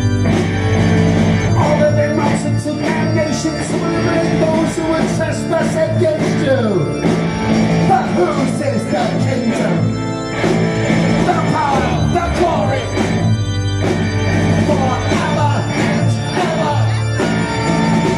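Live rock band playing electric guitar, drums and keyboards, with a male singer's voice over the band.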